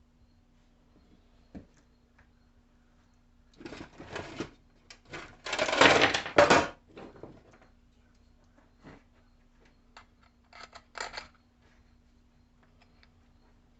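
Clattering and rattling of tools or small parts being handled, in three bouts, the loudest about six seconds in, over a faint steady hum.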